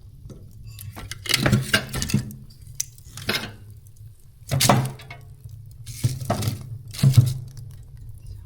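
Firewood being loaded into a hot wood-burning stove: a series of separate knocks and clinks of logs against the firebox and the stove's door.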